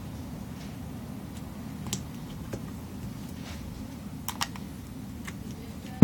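A few scattered small clicks and taps of tools and parts being handled while reassembling an iPhone 4, over a steady low hum, ending in one sharp knock.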